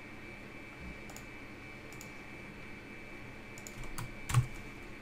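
Scattered computer mouse clicks and keyboard keystrokes, a few light taps spread out and a short cluster near the end, with one louder click and thump about four seconds in. A faint steady high-pitched whine sits underneath.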